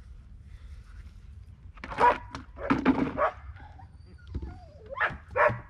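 Dog barking: a cluster of short barks about two seconds in, then two more near the end.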